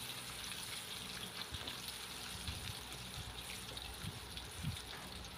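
Sliced shallots, garlic, dried anchovies and chilli sizzling in hot oil in a wok as they are sautéed. The silicone spatula stirs them, with scattered light scrapes and taps against the pan.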